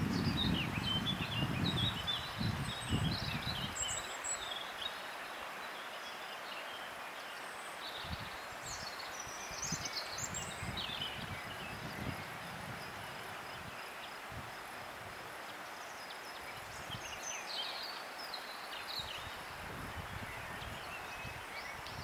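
Wild birds chirping and singing in short scattered phrases over a steady outdoor background hiss, with some low rumbling in the first few seconds.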